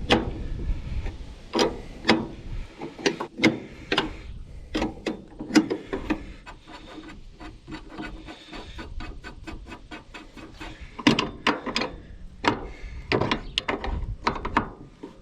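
Hand wrench working a tight nut on a combine header's chain drive: irregular metal clicks, knocks and scrapes as it is turned in short half turns.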